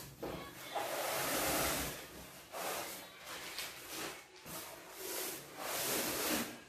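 Cardboard packaging scraping and rubbing against the inside of a cardboard carton as a packed unit is slid out, in a few drawn-out scrapes.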